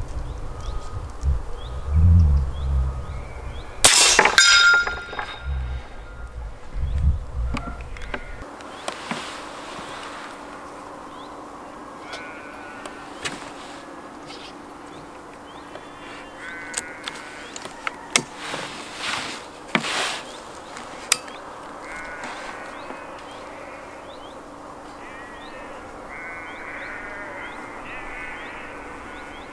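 A single shot from a Gunpower Texan .50 cal big-bore air rifle about four seconds in: one sharp crack with a short ringing tail. Later come several sharp clicks and knocks as the rifle is handled and reloaded.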